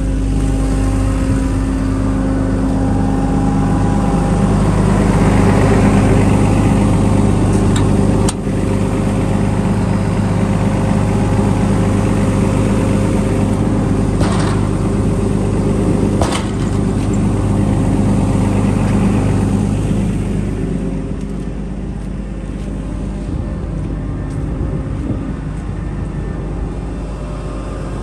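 Dynapac SD2500CS asphalt paver's diesel engine running steadily, with two sharp clicks partway through. The engine sound eases a little in the last third.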